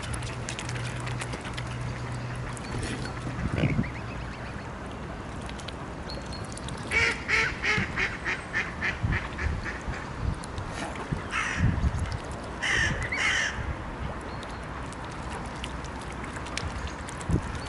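Waterfowl calling: a quick run of about ten short, evenly spaced calls, about four a second, starting about seven seconds in, then a few more short calls a little later.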